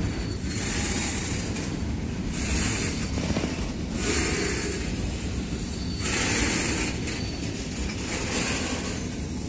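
Freight train's hopper wagons running past at speed: a steady rumble and rattle of wheels on rails, with a hiss that swells and fades every couple of seconds.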